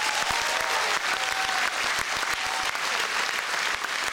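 Audience applauding: steady, dense clapping from a full hall.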